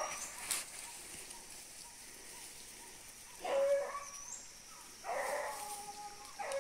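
Hunting dogs baying faintly off in the forest while trailing game, in two spells about three and a half and five seconds in. A bird gives short high chirps.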